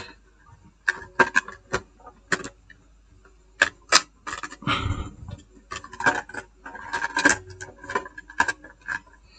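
Irregular small clicks, taps and brief rustles of a laptop's plastic parts being handled and fitted together, as the screen goes back on after its connector is plugged in.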